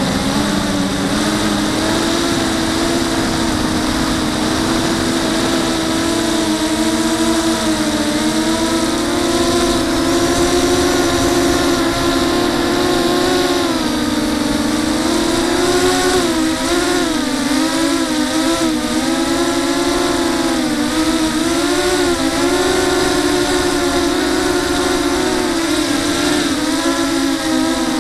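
Electric motors and propellers of a TenTech Thug 250 FPV quadcopter heard from its onboard camera: a steady buzzing whine whose pitch wavers up and down with the throttle as it flies.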